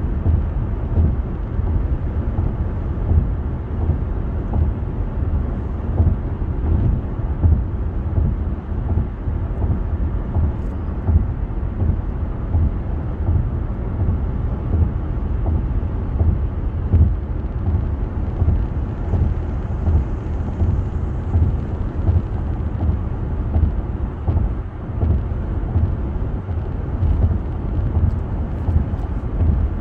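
Steady low rumble of a car driving at highway speed: tyre and road noise heard from inside the cabin.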